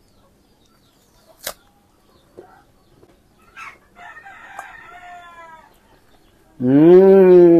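A man's long, loud closed-mouth "mmm" of tasting, sliding slowly down in pitch, as he chews guava with mayonnaise; it starts about a second before the end. Earlier there is a sharp click and a faint, high, drawn-out call.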